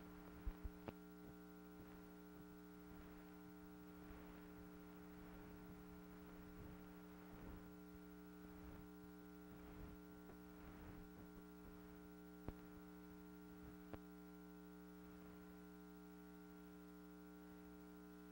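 Near silence: a steady electrical hum with faint hiss, broken by a few short clicks, three close together about half a second in and two more later on.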